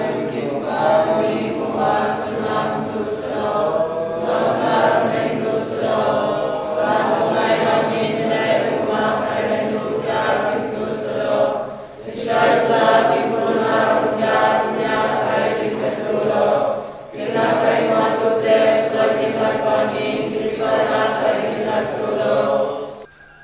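A church congregation singing together in prayer, many voices in long phrases broken by short pauses a few seconds apart.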